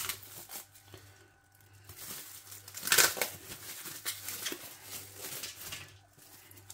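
Clear plastic wrap being peeled and pulled off a frozen pizza: crinkling and rustling in uneven bursts, loudest about three seconds in.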